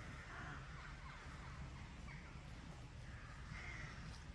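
Faint, harsh bird calls, three spaced about a second and a half apart, over a steady low rumble.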